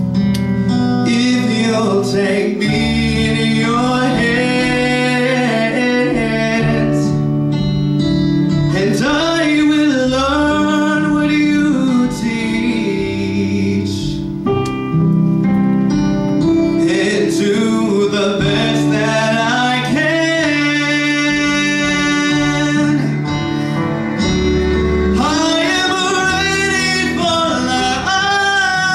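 A man singing into a microphone over instrumental accompaniment, holding long, wavering notes at times.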